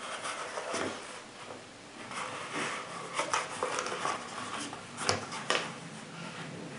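Nylon holster being handled: the fabric and its strap rubbing and rustling under the fingers, with two sharp clicks a half-second apart about five seconds in.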